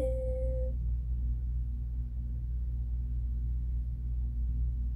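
The end of a woman's unaccompanied sung note, held for under a second, then a steady low hum.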